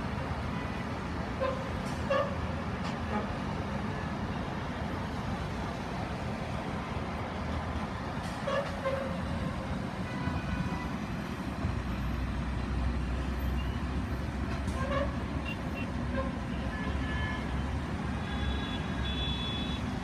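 City road traffic on wet streets: a steady rumble and tyre noise with short car-horn toots now and then. The low rumble grows heavier a little past halfway.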